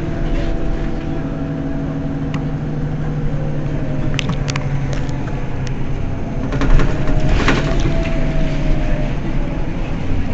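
Mercedes-Benz Citaro city bus's diesel engine idling steadily at a stop. A few sharp clicks sound over it, and the noise swells for a moment at about six and a half seconds.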